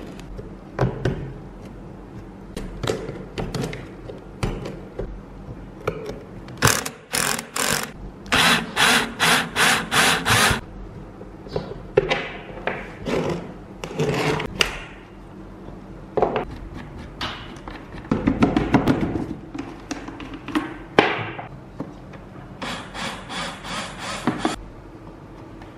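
Hand work on the rusty, grimy metal parts of an old electric fan: runs of rasping scraping strokes, about two a second, with knocks and clunks of parts being handled in between.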